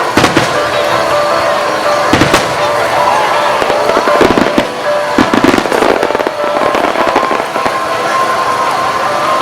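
Starmine fireworks bursting in rapid clusters over the display's accompanying music: sharp cracks near the start, around two seconds in, and in a denser flurry from about four to six seconds.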